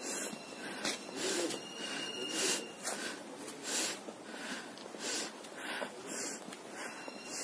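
A person panting heavily close to the microphone, in quick, even breaths about every half second or so.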